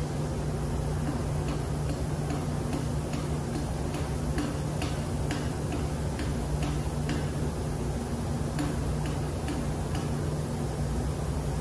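Light metallic clicks, about two a second, from a hand tool turning the bolt at the top of a connecting rod's big end, stopping near the end. Under them runs a steady low machinery hum.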